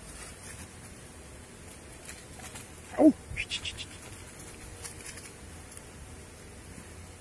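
A dog gives one short, loud bark about three seconds in, followed by a few light crackles.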